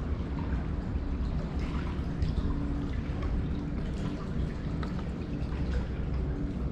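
Steady low wind rumble on the microphone, with water dripping and trickling in small ticks.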